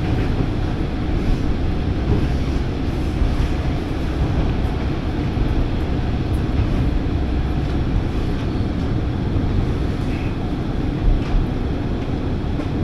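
Diesel railcar running along the line, a steady low rumble of engine and wheels on rail, with two brief louder thumps about eleven seconds in.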